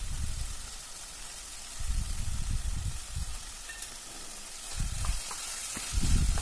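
Vegetables sizzling in hot oil in a pan, a steady fine hiss, with a few low dull bumps as the pan's contents are handled; a wooden spoon starts stirring near the end.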